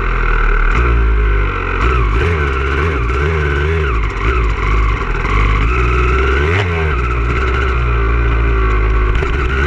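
Motocross dirt bike engine revving, its pitch repeatedly rising and falling as the rider works the throttle and gears, heard close up from a camera on the bike.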